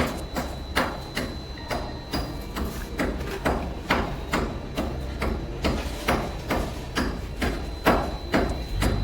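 Even, rapid knocking, about two to three knocks a second, typical of a mallet tapping wall tiles down into their adhesive bed.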